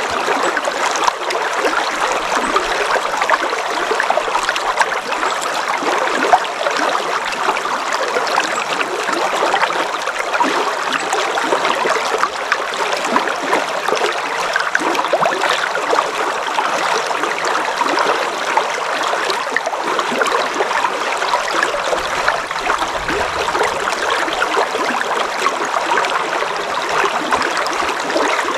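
River water flowing: a steady, unbroken rush full of small splashes and trickles.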